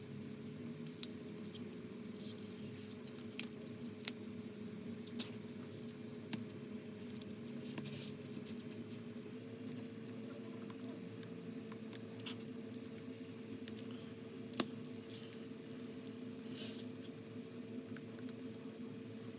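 Scattered small clicks and taps of tools and phone parts being handled on a repair bench, a few louder ones among them, over a steady electrical hum that steps slightly higher in pitch about halfway through.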